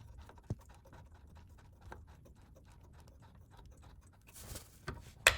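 Light scattered clicks and scraping as a bolt is worked into a lower control arm mounting bracket, with a short rustle and one sharp metallic knock near the end.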